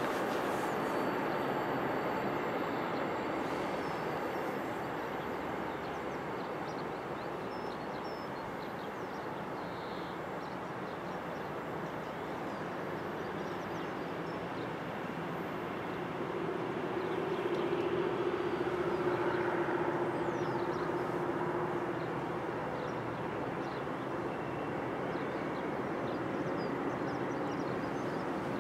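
Freight train of enclosed car-carrier wagons rolling past on a curve: the steady rolling noise of steel wheels on rails. A steady humming tone comes in for a few seconds just past the middle as the sound swells slightly.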